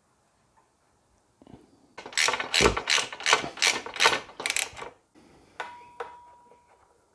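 Socket ratchet wrench clicking in quick back-and-forth strokes on a crash-bar bolt, about three strokes a second for three seconds. Near the end come two light clicks and a short steady beep.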